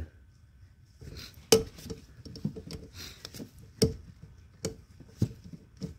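Pliers clicking and clinking against a metal hose clamp and fittings at a heater hose connection: about five sharp clicks at irregular intervals, the loudest about one and a half seconds in, with soft rustling of gloves and hose between them.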